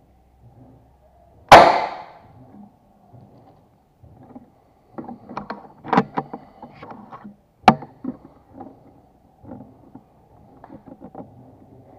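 A PCP air rifle with a 55 cm Polymax barrel fires one shot about a second and a half in: a single sharp crack that dies away quickly. A few seconds later comes a run of clicks and knocks, with one sharp click among them, as the rifle is handled.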